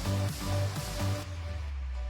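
Background electronic music with a steady beat; the drums drop out about a second in, leaving a held bass note and sustained chords.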